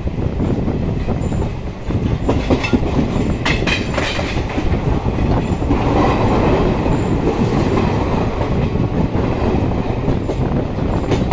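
Passenger train coach running at speed, heard from on board: a steady rumble of wheels on rail with clickety-clack over the rail joints, and a cluster of sharp metallic clacks about two to four seconds in.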